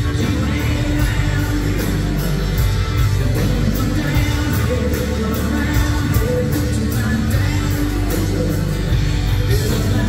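Live country rock band playing over the PA, recorded from the audience, with a male lead vocal singing over electric guitar and a steady drum beat.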